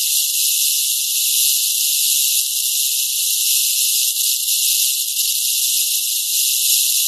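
Rattlesnake shaking its tail rattle: a steady, high, dry buzz with no break. The snake is coiled in its defensive posture, so the buzz is its warning.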